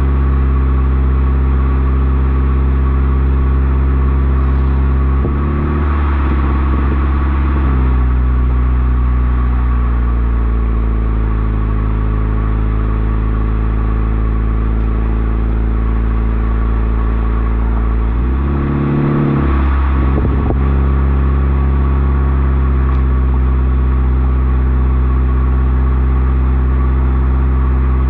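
2013 Toyota Corolla's engine running through an aftermarket exhaust (header, secondary cat delete, Loud Mouth resonator, Borla axle-back) with a loud, steady drone while driving. The note breaks up and changes pitch briefly twice, about five and about eighteen seconds in, and sags slowly in between.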